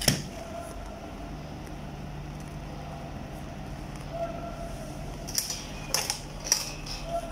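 Handling noise from a heated ferrite-core SMPS transformer wrapped in tissue paper, with a knife at hand: a few sharp clicks and taps, one near the start and a cluster of four near the end. Under them runs a steady low hum with a few short, higher pitched tones.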